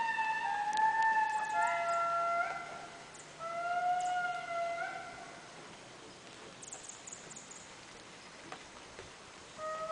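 Indris singing: long, wailing held notes, several voices overlapping at different pitches. The song breaks off in the middle and starts again near the end.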